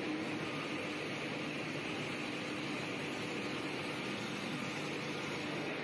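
Steady machinery hum and hiss of a steel rail rolling mill, even throughout with a few faint steady tones underneath.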